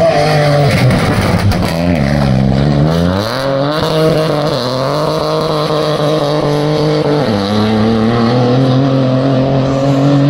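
Opel Corsa rally car's engine pulling hard as it passes and drives off along the stage. The revs drop about two seconds in, climb again, and fall once more around seven seconds in at a gear change.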